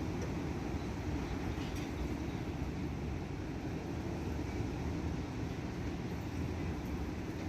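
Strong wind blowing, a steady low rumble of noise with no let-up.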